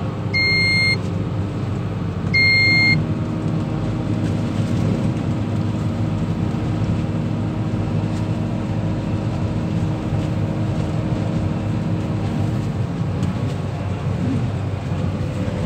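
Crane engine running steadily with a constant low hum, heard from the operator's cab, with two short high electronic beeps in the first three seconds.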